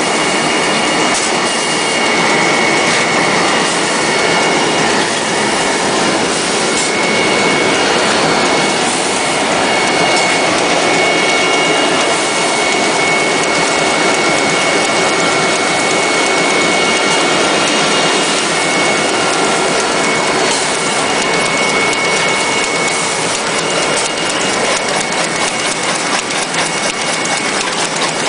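Facial tissue making machine running: a steady, dense mechanical noise of rollers and folding gear, with a thin high whine held throughout.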